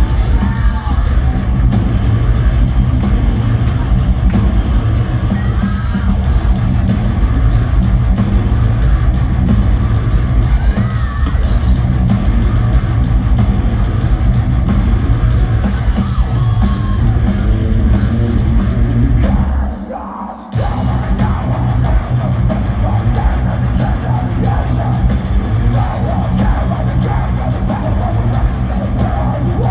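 Heavy metal band playing live: distorted guitars, drum kit and heavy bass. About twenty seconds in, the band cuts out for about a second, then crashes back in.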